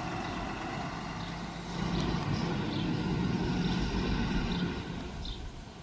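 A road vehicle's engine rumbling past, growing louder about two seconds in and easing off near the end, with short high chirps now and then.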